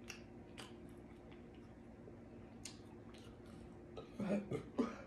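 Close mouth sounds of eating sauced BBQ rib tips: a few sharp wet smacks and clicks, then louder smacking and chewing about four seconds in as a bite goes into the mouth. A faint steady hum runs underneath.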